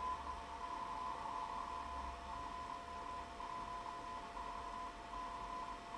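Morse code (CW) received on an ELAD FDM-S2 software-defined radio tuned to 7.028 MHz in the 40 m amateur band: a tone near 1 kHz keyed rapidly on and off in dots and dashes over band hiss, with a second steady tone, lower in pitch, from another carrier. The title gives the sending station as EA2WX/1.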